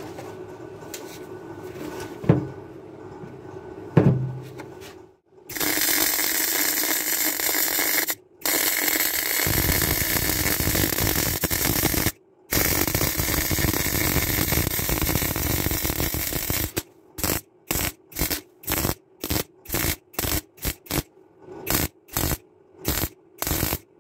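MIG welder arc crackling on a steel chassis rail: two sharp knocks, then long runs of steady crackle lasting several seconds with two brief pauses, then near the end about two short bursts a second as the weld is stitched in.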